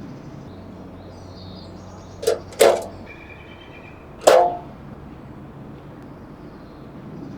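Three sharp knocks, two close together about two seconds in and a third about a second and a half later, each with a brief ring, over a steady background hum.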